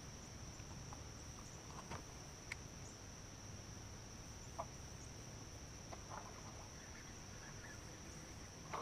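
Quiet swamp ambience: a steady high-pitched insect drone, with a few faint short bird calls about halfway through and toward the end.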